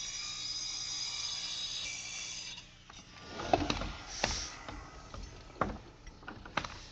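Power saw running steadily with a high whine as it cuts the overhanging plywood subfloor ends along the chalk line, stopping about two and a half seconds in. Scattered sharp knocks and clicks follow.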